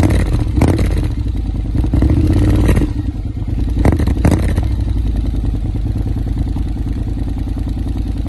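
Honda X-ADV 750 parallel-twin engine running through an Arrow Race-Tech titanium slip-on exhaust, a loud steady pulsing with a few sharp cracks, mostly in the first half.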